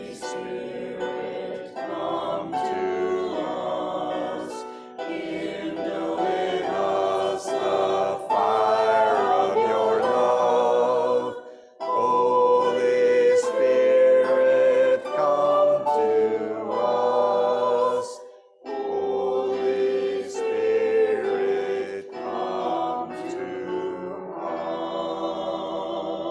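A group of voices singing a hymn together in chordal harmony, in phrases with short breaks about 12 and 18.5 seconds in.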